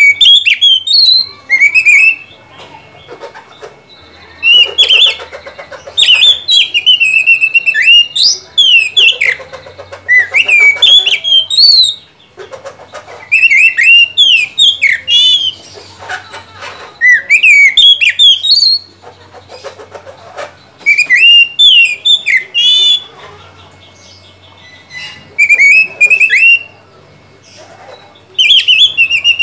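Oriental magpie-robin singing: loud whistled phrases that sweep up and down in pitch, coming one after another with short pauses between.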